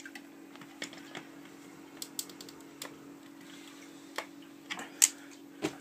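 Irregular clicks and taps of tongue-and-groove pliers on plastic fittings as the DI cartridge's fitting is gripped and worked loose, with the sharpest click about five seconds in.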